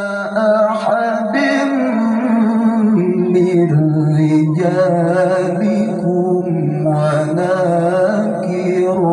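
A male qari reciting the Qur'an in the melodic tilawah style through a microphone and loudspeakers: one voice drawing out long held notes with wavering ornaments, stepping up in pitch about a second in and down about three seconds in.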